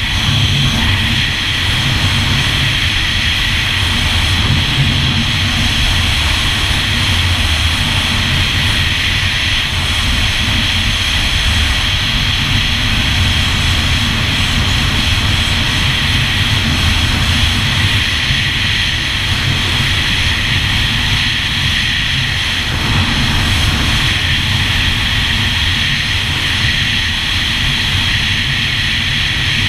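2001 Yamaha GP1200R personal watercraft's two-stroke three-cylinder engine running steadily while under way.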